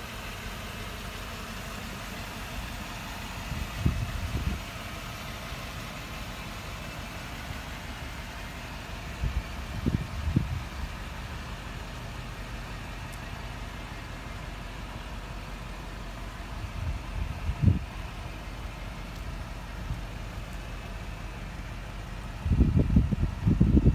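A 1995 Chevrolet Impala SS's V8 idling steadily. Low gusts of wind buffet the microphone a few times, heavier near the end.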